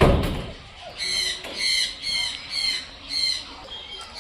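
A loud low thump at the start, then an animal's short high-pitched call repeated about twice a second.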